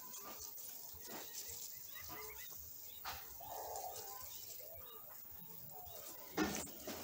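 Faint, scattered short peeps of a mockingbird nestling, with a brief louder rustle about six seconds in.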